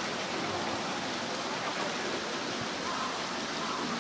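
Steady rushing of water, with faint voices near the end.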